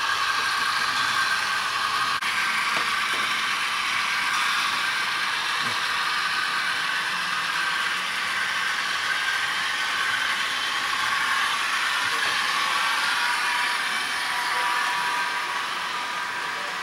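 HO scale model freight train with diesel locomotives running along the track: a steady mechanical whir and clatter of the motors and wheels on the rails.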